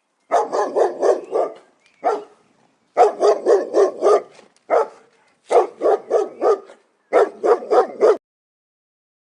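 A dog barking in quick runs of four or five barks, with short pauses between the runs.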